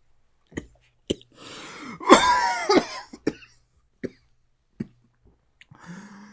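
A man coughing hard from the burn of ghost pepper hot sauce. The loudest cough comes about two seconds in, after a breath in, with a few short sharp sounds around it and a low breathy sound near the end.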